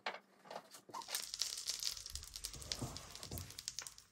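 Clarified butter melting and sizzling in a hot frying pan, with a few light scrapes of a wooden spatula in the first second. From about a second in, a steady crackling sizzle with many small spits: the fat has reached frying heat.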